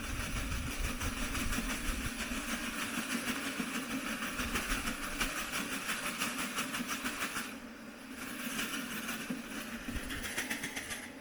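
Honeybees buzzing steadily as a low, even drone while the colony is being settled into a hive box, with a hiss layered over it that dips about seven and a half seconds in.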